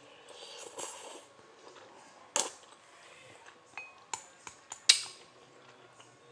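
Eating utensils scraping and clinking against a dish: a short scrape near the start, a sharp clink about two and a half seconds in, then a run of lighter clicks ending in the loudest clink about five seconds in.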